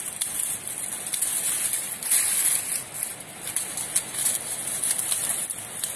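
Dry peony stems and fallen leaves rustling and crackling as gloved hands gather them up from around the base of a bush cut to ground level, louder in places.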